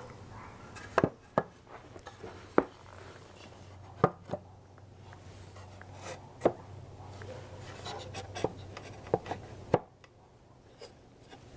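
Irregular sharp wooden knocks and clicks, about eight of them, as the joints of a furniture carcase are tapped and worked together in a dry fit.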